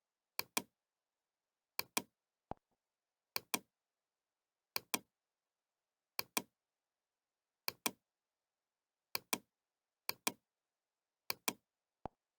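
Nine double clicks, each a pair of sharp clicks about a fifth of a second apart with the second one louder, coming roughly every second and a half, with a lone fainter click twice.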